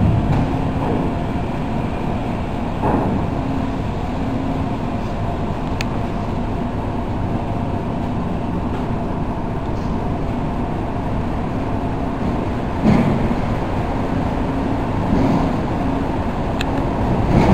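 Steady low drone of a passenger ship's machinery as it berths, with a few short knocks, the loudest about thirteen seconds in.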